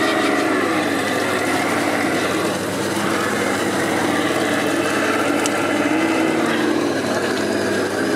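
An RC scale crawler's electric motor and gearbox whining, the pitch rising and falling as the throttle changes.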